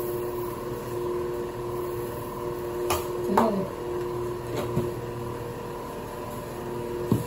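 A steady mechanical hum, with a few faint clicks and knocks about halfway through and again near the end.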